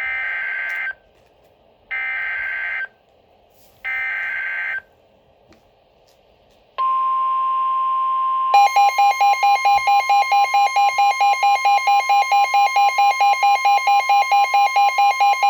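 Emergency Alert System signal on NOAA Weather Radio: three harsh, buzzing SAME digital data bursts about two seconds apart, which encode the alert for the coming severe thunderstorm warning. They are followed by the steady 1050 Hz weather-radio warning alarm tone. About a second and a half later a rapid, pulsing electronic beep, roughly six pulses a second, sounds over the tone until both stop together.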